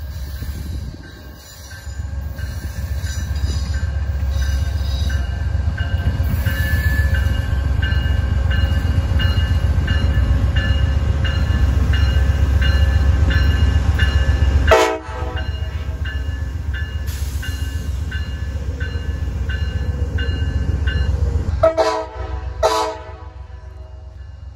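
Amtrak GE Genesis diesel locomotive and passenger train passing close by: a heavy, loud rumble of engine and wheels that builds and holds, with a regular ringing about one and a half times a second. Two brief sharp sounds cut in about 15 s in and again near 22 s, and the rumble then drops away.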